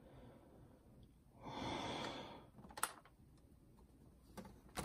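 A person sighing once, a long breath out about a second and a half in, followed by a few faint clicks.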